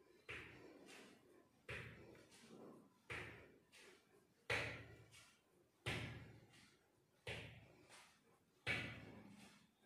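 Bare foot thumping down on the floor at a steady pace, about one every second and a half, each thump with a short echo and lighter taps in between, as a knee-raise exercise is repeated.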